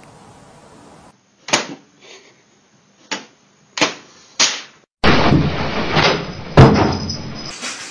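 Four sharp knocks spaced about half a second to a second and a half apart, then a cat rattling a wooden door for a couple of seconds, with one loud bang near the end.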